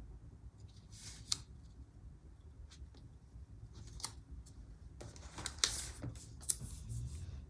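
Scissors snipping paper a few times, with light paper rustling between the cuts.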